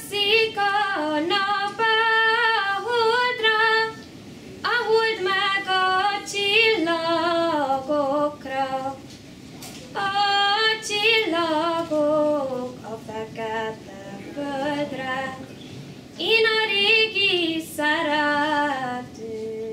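A woman singing a melody in short phrases, with held and gliding notes and brief pauses between phrases.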